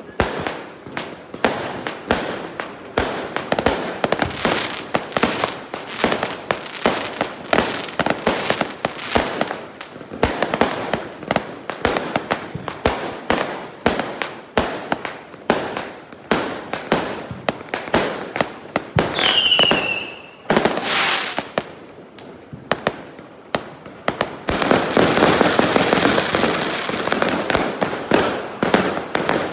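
Fireworks going off in a rapid, dense string of sharp cracks and pops. About two-thirds of the way through, a whistle falls in pitch, and over the last few seconds the bangs merge into a louder continuous crackle.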